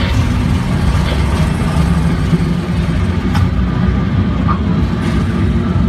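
Roller coaster car rolling along its track in an enclosed dark ride, a steady low rumble.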